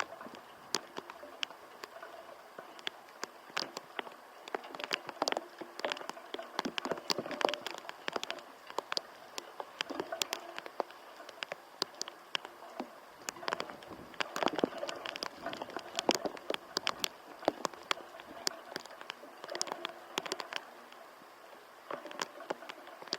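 Raindrops in typhoon rain pattering irregularly on a nearby surface as many sharp little ticks, coming thicker in spells.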